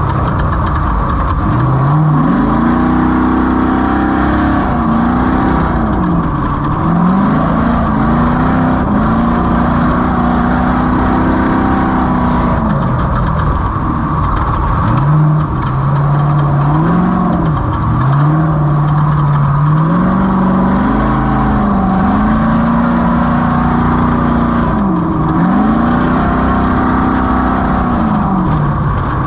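Off-road race vehicle's engine running hard, its pitch climbing, holding and dropping again and again with throttle and gear changes, over a steady rush of wind and terrain noise.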